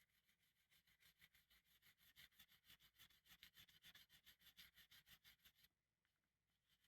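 Quiet, rapid back-and-forth scrubbing strokes of hand abrasive work on a saw during restoration, about six or seven strokes a second, stopping about five and a half seconds in and starting again at the very end.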